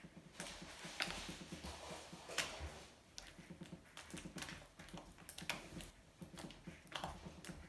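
Jiggly homemade slime being poked and squeezed by hand: faint, irregular wet clicks and squelches, a few louder ones about a second in, about two and a half seconds in and near the end.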